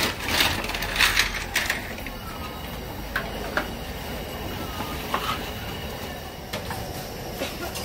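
Aluminium steamer pot set down on a gas burner and its domed lid put on: a burst of clattering metal in the first two seconds, then scattered light clinks and knocks over a steady rushing noise.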